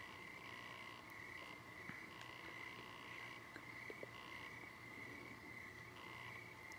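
Faint, steady chorus of calling insects: a continuous high trill with shorter pulsing calls over it.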